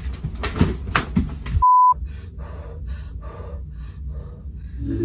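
A short, loud 1 kHz censor bleep about a second and a half in, with the other sound dropped out around it. Before it come a few knocks, and after it faint breathy voice sounds.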